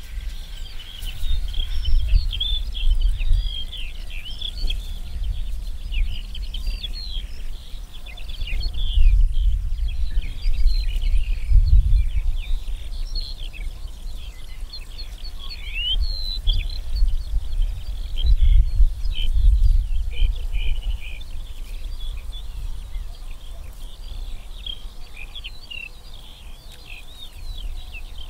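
Many small birds singing and chirping at once, a dense chorus of overlapping trills and tweets. Wind buffets the microphone as a low rumble that swells and fades in gusts, loudest around the middle.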